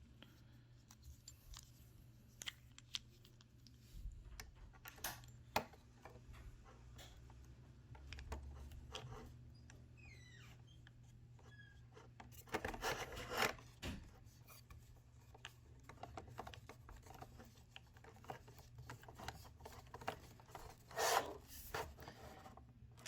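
Small screws being driven by hand with a T10 Torx screwdriver into a plastic cupholder assembly: faint scraping and clicking, with two louder spells of rubbing about halfway through and near the end.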